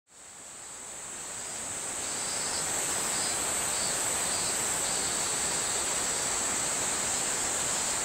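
Steady high-pitched insect chorus over an even hiss, fading in over the first two seconds.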